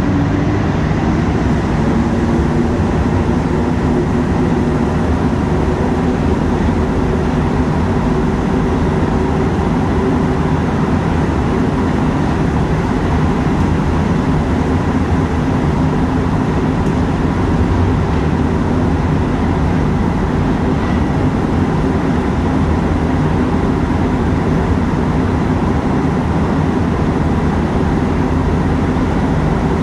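Montreal Metro rubber-tyred train running through the tunnel, heard from inside the car: a steady, loud running noise of the tyres and motors.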